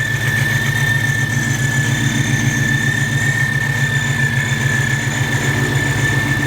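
Freshly swapped Ford V8 idling steadily with a constant, even exhaust rumble. A steady high-pitched whine sits over it.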